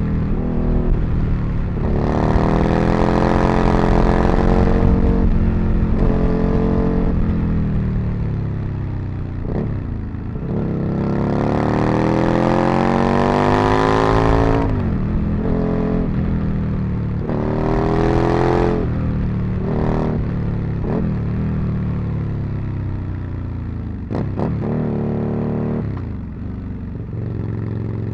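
Aprilia RSV Mille's V-twin engine accelerating hard several times, its pitch rising through the revs and dropping at each gear change, with falling pitch in between as it comes off the throttle. Near the end it settles to a steadier, lower note.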